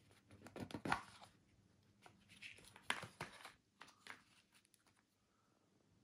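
Cardboard Zippo lighter box opened by hand and the lighter lifted out: short bouts of scraping, rustling and light taps. The loudest come about a second in and near three seconds in.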